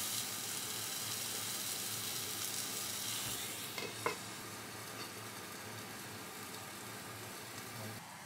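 A burger patty and a pan of mushrooms and onions sizzling as they fry. A single sharp clink about four seconds in as a glass lid is set on the pan, after which the sizzling is quieter.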